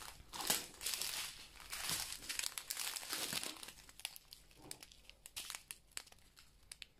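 Crinkling of small sealed plastic bags of diamond painting drills being picked up and handled. The crackles come thick in the first few seconds, then thin out and grow quieter toward the end.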